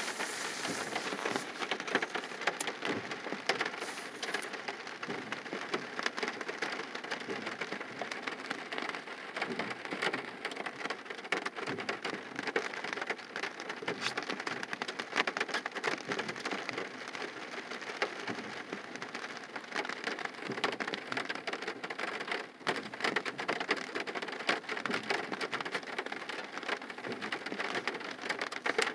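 Rain falling on a car's roof and windshield, heard from inside the car: a steady hiss with many small drop ticks.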